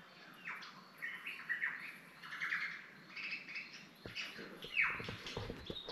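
Superb lyrebird singing, a rapid run of varied whistles and chirps, many sweeping quickly downward: its mimicry of other birds' calls. Low rustling knocks in the last two seconds.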